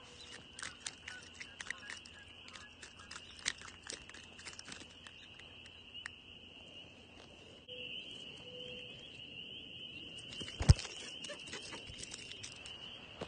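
A steady high-pitched chorus of frogs calling, louder in the second half. Over it come many small clicks and rustles of a landed fish being handled in the first few seconds, and one sharp knock about eleven seconds in.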